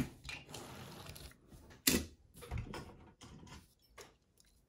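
Small die-cast toy cars being handled and set down on a tabletop: a few scattered clicks and knocks, the sharpest about two seconds in, with faint rustling between.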